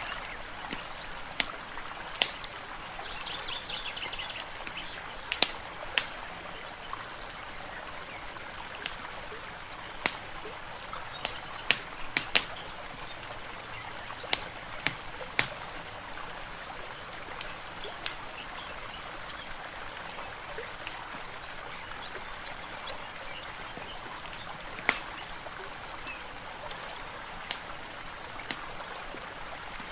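Fireplace crackling, with sharp pops at irregular intervals over a steady wash of water. A bird chirps briefly about three seconds in.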